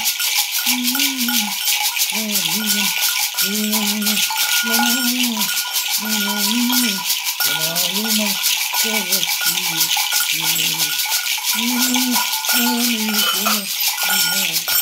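Gourd maracas hung with small metal bells, shaken in a fast, continuous rattle. Under the rattle a voice chants in short, repeated phrases.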